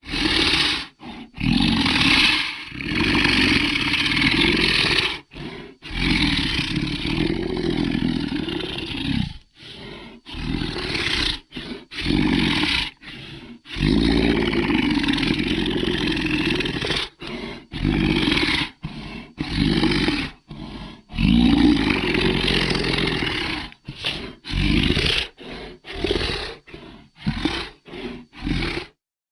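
Sea monster sound effect: a series of deep creature roars and growls with brief silent gaps between them. The long roars give way to short, quick growls near the end.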